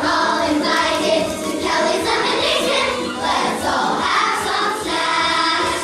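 A group of young voices singing a song together over musical accompaniment.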